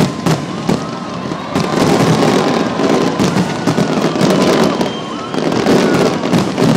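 Fireworks display: a rapid run of booms and crackling bursts, growing denser and louder from about a second and a half in.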